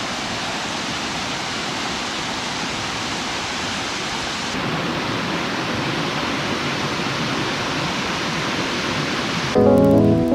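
Steady rushing of water from a waterfall. About halfway through the rush becomes fuller and deeper. Near the end, louder music with plucked notes comes in over it.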